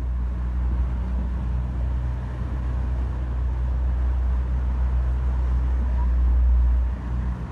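Boat's outboard motor running steadily under way, a low rumble mixed with the rush of wind and water; it dips briefly near the end.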